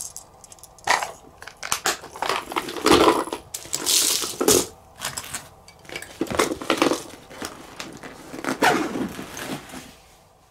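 A clear plastic tackle box of squid jigs being snapped shut and packed into a coated waterproof bag: irregular plastic clicks and knocks mixed with the rustle and crinkle of the bag's stiff fabric.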